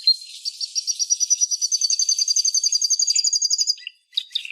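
Canary singing: a fast trill of evenly repeated high notes that rises slightly in pitch over about three seconds, followed by a few short chirps near the end.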